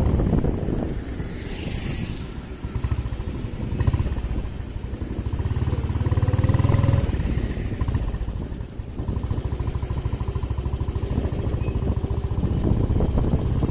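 Motorcycle engine running under way, rising and falling with the throttle. It swells about six seconds in and eases off briefly about nine seconds in before picking up again.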